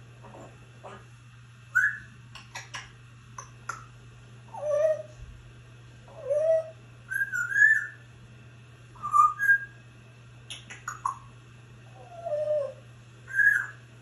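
African grey parrot whistling a series of short gliding notes, some swooping up and some dipping down, with sharp clicks between them.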